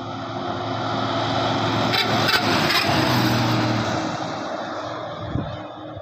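A bus driving past on a highway: its engine and tyre noise swell as it approaches, peak about halfway through, then fade as it goes away.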